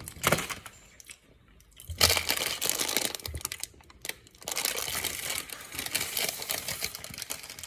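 Candy wrapper crinkling as it is handled, in dense, irregular crackles from about two seconds in.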